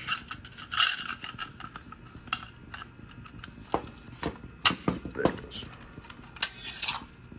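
Irregular metallic clicks, taps and scrapes of a steel 20-round M16 magazine being reassembled, its spring and follower being pushed down into the magazine body with a punch rod. A sharper click comes a little past the middle.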